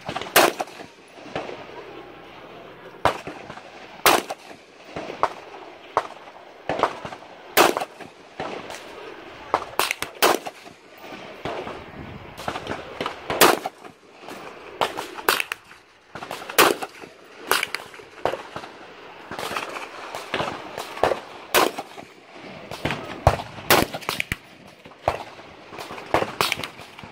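AR-15 rifle fired in single shots, the loudest cracks coming roughly every three seconds, with fainter gunshots from other shooters on the range in between.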